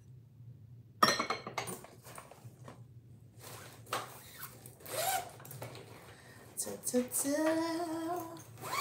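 Plastic makeup cases and small items clicking and rustling as they are handled and sorted. Near the end, a drawn-out vocal hum lasts about a second and a half.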